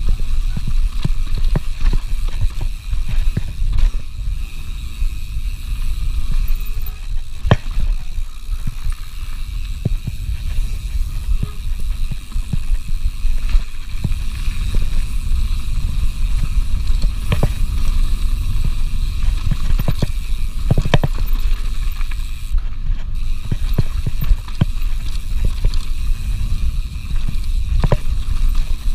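Mountain bike riding fast down a dirt trail: a steady low rumble of wind on the microphone and tyres on the dirt, with frequent knocks and rattles from the bike over bumps.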